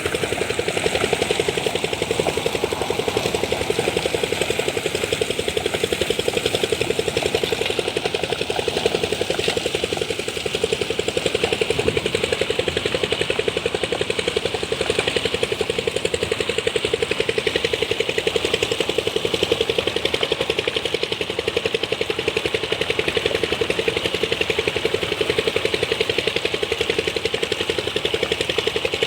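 An engine running steadily at a constant speed, with an even, rapid pulsing and no revving.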